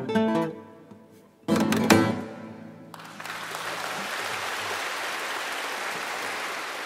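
Four classical guitars strike the closing chords. One chord rings and dies away, then a last loud chord comes about a second and a half in. About three seconds in, audience applause starts and carries on steadily.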